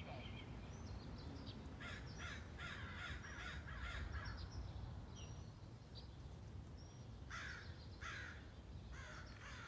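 Crows cawing in groups of several harsh calls each, about a second in, again near the middle and near the end, over a low steady outdoor rumble.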